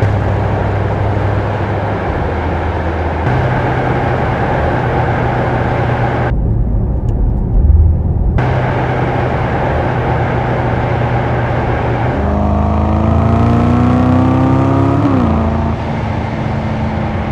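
Mercedes-AMG S63 E Performance's 4.0-litre twin-turbo V8 running steadily in a series of edited clips that cut from one to the next, with a brief loud blip about eight seconds in. About twelve seconds in it revs, rising in pitch for around three seconds before falling back.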